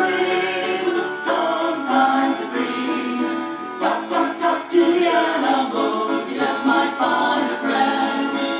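A choir singing a song as background music.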